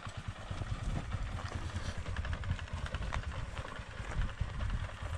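Motorcycle engine chugging at low revs as the bike rides slowly over a loose, rocky dirt track, with scattered clicks and knocks of stones under the tyres.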